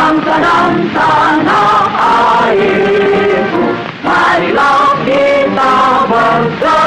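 A group of voices singing together with music, in phrases of long held notes.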